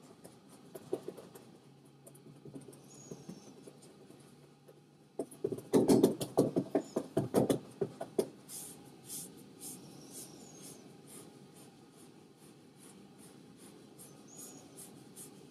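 Massage therapist's hands working over a towel-covered back: faint rubbing and light taps, then about five seconds in a quick run of percussive strokes, about five a second for some three seconds, the loudest part.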